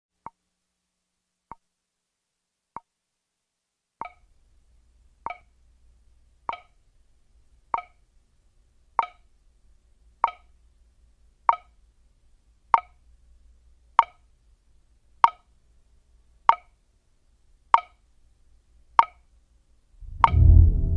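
A clock ticking slowly, about one tick every second and a quarter. The first three ticks are faint; the rest are louder, each with a short pitched ring. Near the end a deep musical swell comes in under the ticks.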